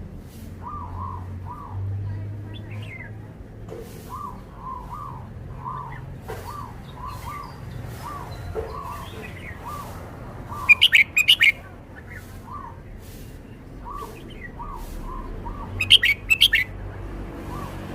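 Red-whiskered bulbul singing: two loud, quick bursts of song, about ten seconds in and again near the end, over softer short chirps repeated throughout.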